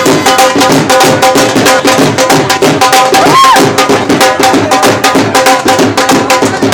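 Street dhol drums playing a fast, steady beat, with a repeating held-note melody over it. A short rising-and-falling whistle sounds about halfway through.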